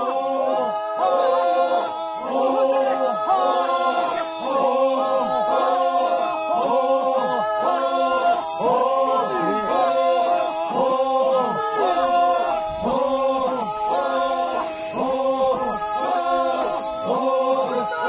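A group of voices chanting together in unison without instruments, a short sung phrase repeated over and over in a steady rhythm.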